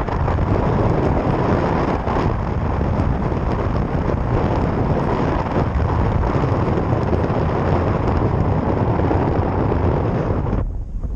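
Wind buffeting the microphone during a paraglider flight: a loud, steady rush of wind noise, heaviest in the low range, easing briefly near the end.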